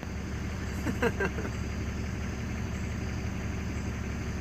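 A steady low machine hum, with a brief voice about a second in.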